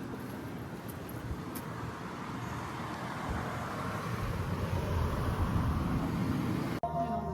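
Road traffic noise: a steady rush of passing cars that swells louder around the middle, then cuts off abruptly near the end.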